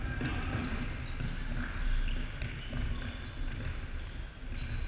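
Indoor futsal game in a large, echoing sports hall: the ball being kicked and bouncing on the wooden court in scattered knocks, with players' voices and brief high squeaks mixed in.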